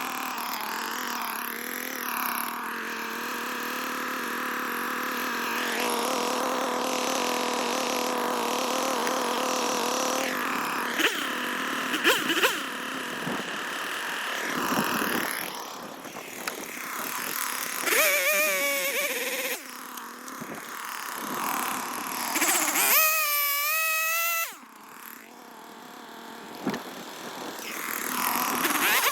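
An engine running steadily, then unevenly with shifts in pitch, with a brief wavering whine near the end.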